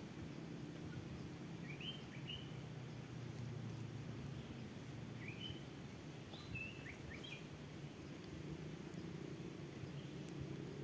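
Small birds giving short high chirps in two little groups, about two seconds in and again around five to seven seconds in, over a steady low outdoor hum.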